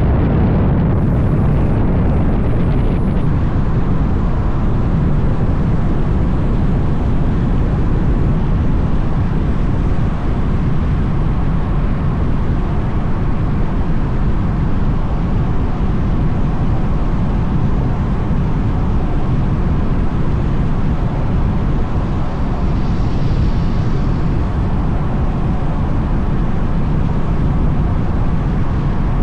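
Mazda MX-5 being driven: steady engine, tyre and wind noise at a constant pace.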